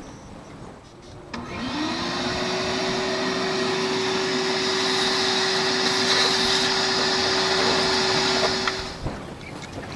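A small electric motor starts about a second in, quickly spins up to a steady hum, and shuts off about a second before the end.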